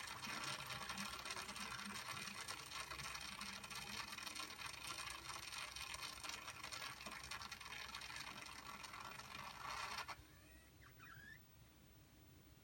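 Water draining out of a washing machine's corrugated drain hose through a rubber funnel into a laundry sink, a steady rushing hiss with a mechanical whir from the drain pump, which cuts off suddenly about ten seconds in.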